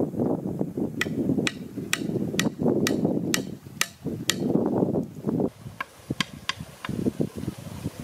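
A short wooden stake being pounded into soft ground with the end of a long wooden pole: sharp wood-on-wood knocks about two a second, eight in a row, then four fainter ones near the end.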